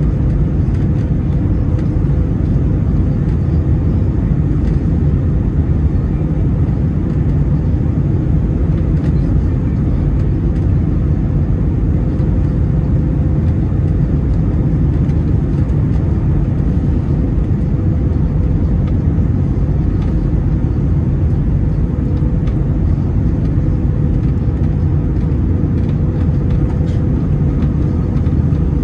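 Steady cabin noise aboard an Airbus A321-200 airliner: an even rumble of its CFM56 engines and airflow, with a faint steady hum underneath.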